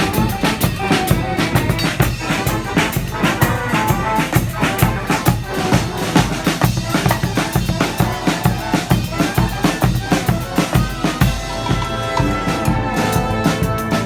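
Street brass band playing loud, with a drum kit of snare and bass drum under brass horns. The drumming is dense and fast until about eleven seconds in, when it drops back and the horns hold long notes.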